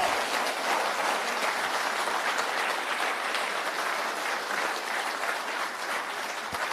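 An audience applauding, a dense, even clatter of many hands clapping that eases off slightly toward the end.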